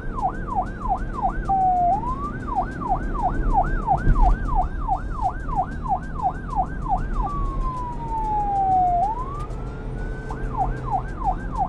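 Police car siren cycling through a fast yelp, about three sweeps a second, with two slower wails that fall in pitch and then rise again, over a low rumble.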